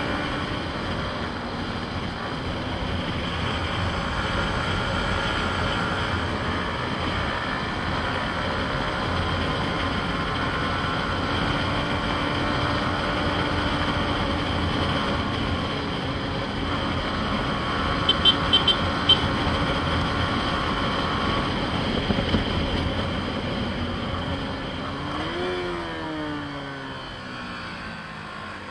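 Yamaha MT-15's 155 cc single-cylinder engine running steadily at road speed under a wash of wind noise, with a quick run of clicks about two-thirds of the way through. Near the end the revs drop, then rise again as the bike slows for and takes a bend.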